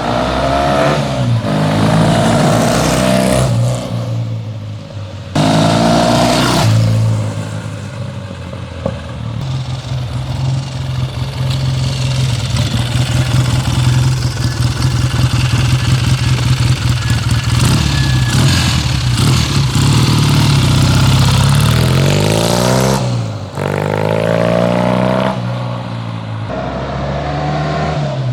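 1965 Triumph Trophy 650's parallel-twin engine revved up and let fall back several times, then held at steady, raised revs for a long stretch, with more rev blips near the end.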